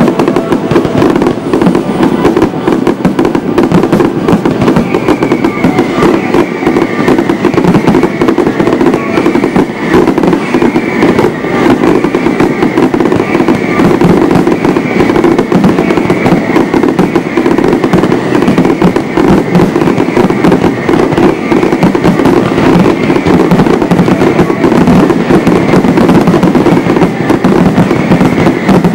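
Fireworks display firing a dense, continuous barrage of shell bursts and crackle. From about five seconds in, a high falling tone repeats roughly once a second over it.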